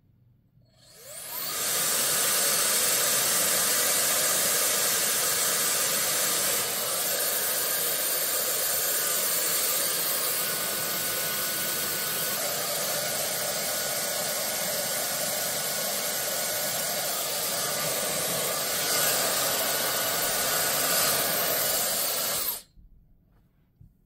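Conair InfinitiPRO DigitalAIRE hair dryer with a diffuser attachment, switched on with a short rising whine as it spins up. It blows steadily on its high fan setting, then cuts off suddenly near the end.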